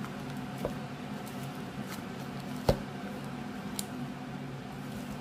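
Slime being squeezed and kneaded by hand in a plastic tub: soft squishing with scattered small clicks and one sharper, louder click a little past halfway, over a steady low hum.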